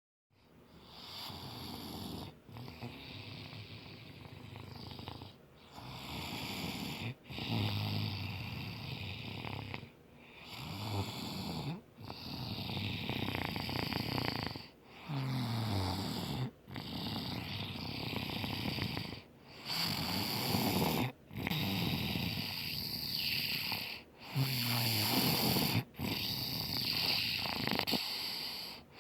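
A child snoring heavily in sleep, one loud snore after another, about one every two to three seconds with brief pauses between breaths; some snores slide down in pitch.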